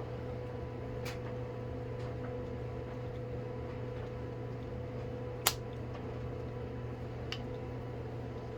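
Steady low electrical hum of the room with a few sharp clicks of small plastic containers being handled, three in all, the loudest about five and a half seconds in.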